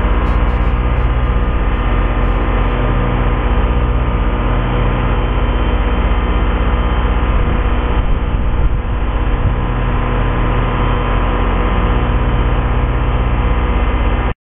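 Engine of a snow-clearing machine running steadily under load, a constant mechanical drone that cuts off abruptly at the very end.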